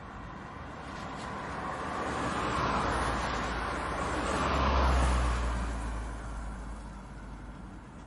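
A car passing by: tyre and engine noise swells over a few seconds, is loudest about five seconds in with a deep rumble, then fades away.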